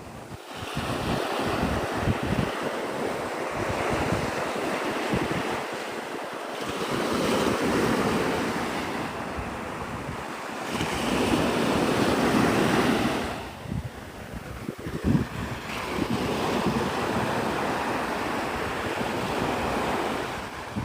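Gulf surf washing onto the beach, the wash swelling and ebbing in surges every few seconds, with wind buffeting the microphone.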